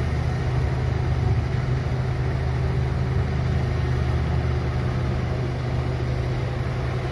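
Heavy diesel engine of mining machinery running steadily, a low drone that holds even throughout.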